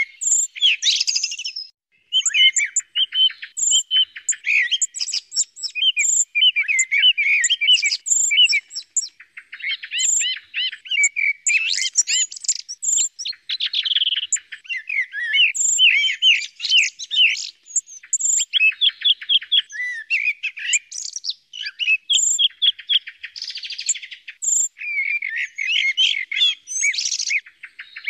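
Common blackbird and song thrush singing, a recorded bird-call track of the kind hunters play to lure thrushes: a continuous run of varied short phrases and rapid trills with high sharp notes.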